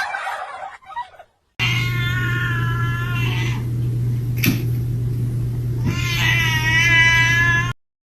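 A cat giving two long, drawn-out meows, one about two seconds in and another near the end, over a steady low hum, with a single click between them.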